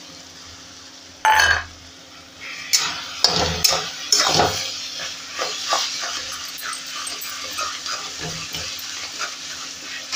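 Metal spatula scraping and knocking against a steel kadai as garlic-ginger-chilli paste is stirred into frying tomato masala, with a sizzle under the irregular scrapes. A short loud sound comes about a second in, before the stirring starts.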